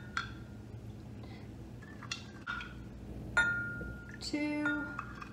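A measuring spoon clinking against a glass measuring cup as spoonfuls of syrup are measured in: a few light clinks, the loudest about three and a half seconds in with a short ringing tone from the glass.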